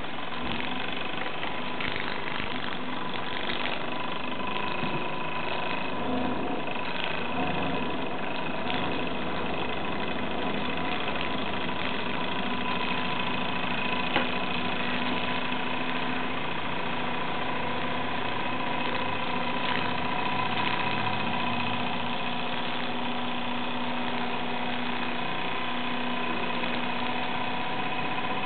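Small single-cylinder model steam engine, run on steam from a stovetop espresso pot used as its boiler, running steadily over a gas burner. There is one sharp click about halfway through.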